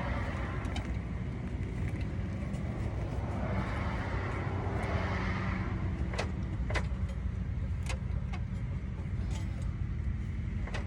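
A car engine running steadily, with another vehicle swelling past and fading about four seconds in, and a few sharp knocks scattered through.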